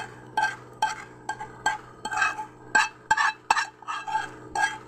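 A spoon scraping and clinking against a cooking vessel in about a dozen quick strokes, roughly two a second, as thick starfruit and rock-sugar jam is scooped out into a bowl.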